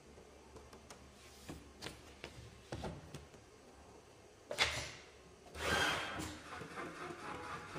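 Scattered clicks and knocks of an industrial pattern template sewing machine being set up, with a sharp clack about four and a half seconds in and a short rush of noise about a second later, before the machine starts sewing.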